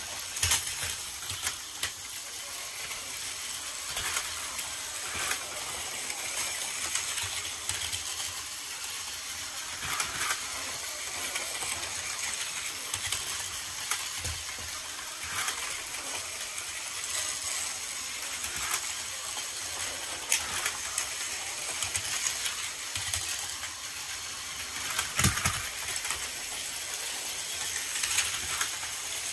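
Several battery-powered Plarail toy trains running on plastic track: a steady whir and rattle of small motors and wheels, with frequent sharp clicks and a few louder clacks.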